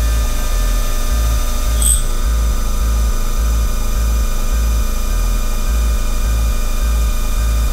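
CNC beam drilling machine's spindle contour-milling a hole in a steel beam: a steady machining whine with a brief sharp squeal about two seconds in.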